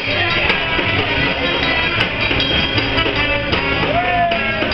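Live band playing fast, upbeat music on upright double bass and drum kit, with regular cymbal and drum strokes.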